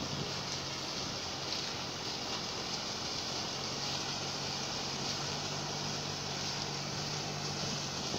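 Steady drone of heavy diesel machinery: a sugarcane harvester loading chopped cane into a truck running alongside it. The engine hum grows a little stronger about halfway through.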